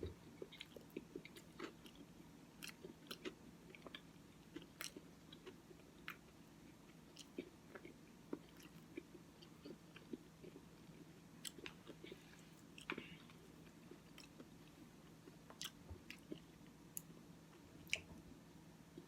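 Faint close-up chewing of Cookie Crisp oatmeal, with soft, irregular mouth clicks and smacks.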